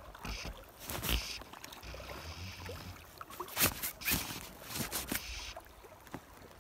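Water lapping and sloshing around a wading angler, with irregular knocks and rubbing from the fingers handling the fly line against the phone.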